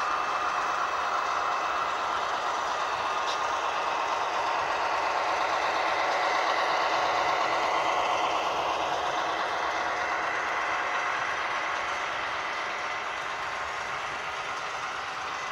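HO scale model freight train rolling past on the layout: a steady mechanical rattle and rumble of the cars' wheels on the track, growing louder toward the middle and easing off near the end.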